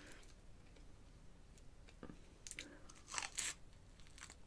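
Biting into crispy spicy fries: a few sharp crunches about two and a half to three and a half seconds in, with chewing.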